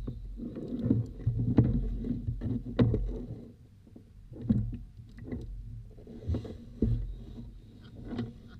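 Gear being handled on a Hobie Outback kayak: irregular knocks and clicks with dull low thumps carried through the hull, over a low rumble of water and wind.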